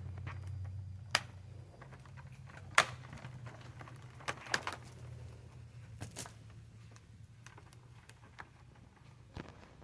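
Scattered sharp clicks and knocks, about six of them, the loudest near the three-second mark, over a faint low hum.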